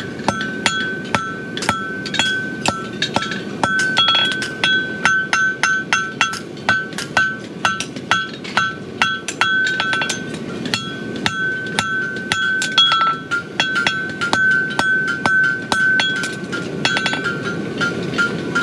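Farrier's hand hammer striking a red-hot steel horseshoe bar on an anvil, about three blows a second, with the anvil ringing between blows as the bar shoe is forged to shape.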